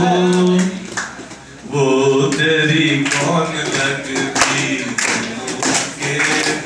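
A man singing a Punjabi tappa unaccompanied, holding long wavering notes, with a short break about a second in. A few hand claps come in during the second half.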